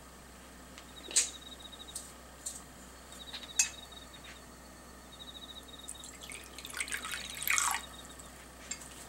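Water poured into a glass bowl of white dashi, splashing and loudest near the end. Before it, two sharp clicks about a second in and again two seconds later. A cricket trills faintly in short repeated bursts throughout.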